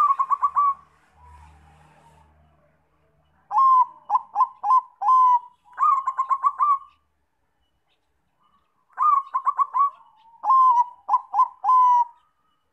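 Zebra dove (perkutut Bangkok) cooing: five phrases of quick, clipped notes run together, with pauses between them.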